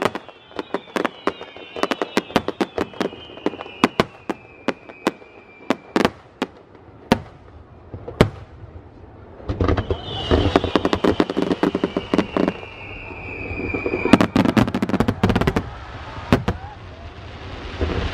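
Aerial fireworks bursting overhead: a rapid, uneven string of sharp bangs and crackles, with whistling tones that slide slowly down in pitch. The crackle grows denser and louder from about halfway through.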